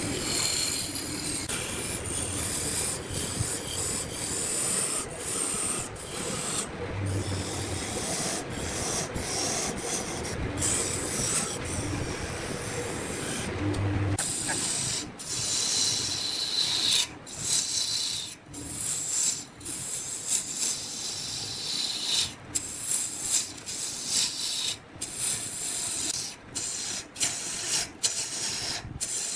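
Wood being worked on a spinning lathe: a steady, hiss-like scraping of tool or abrasive against the turning wood. From about halfway through it is broken by many short breaks.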